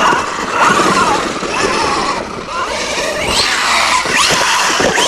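Losi Super Rock Rey RC truck driving hard, its electric motor whining and rising and falling in pitch with the throttle several times, over a steady rough noise.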